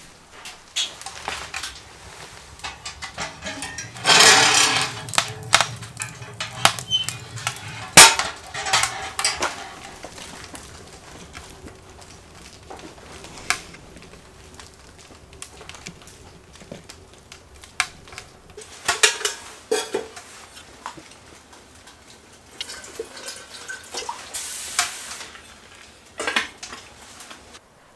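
Metal camp cookware being handled on a wood stove, including a coffee percolator and its lid: scattered clinks and clatters, with a denser clatter about four seconds in and the loudest, a sharp knock, about eight seconds in.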